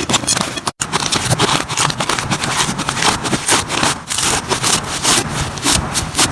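Slime being squished and pressed by hand, making a dense run of wet crackles, clicks and pops, broken by a brief silent gap under a second in.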